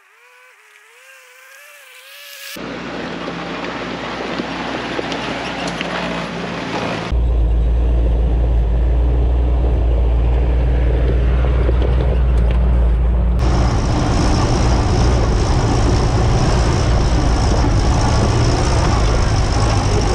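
Willys CJ-2A Jeep's four-cylinder flathead engine running under load as the Jeep climbs a rocky dirt hill on knobby ATV tires. After a faint wavering tone, the engine comes in suddenly about two seconds in and gets much louder about seven seconds in, then runs steadily.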